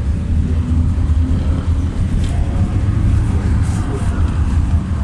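Interior ride noise of a Belkommunmash BKM-60102 in motion: a steady low rumble of the running gear and road.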